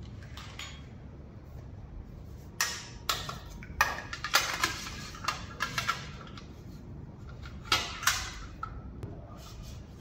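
Small metal hardware clinking and knocking in a string of sharp clatters from about two and a half to six seconds in, then twice more near eight seconds: the nut and bolt of the headlight bracket being handled and fitted to the front fork.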